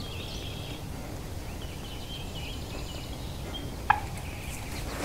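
Small birds chirping faintly over a steady outdoor background, with one short, sharp note about four seconds in that fits a wild turkey's alarm putt.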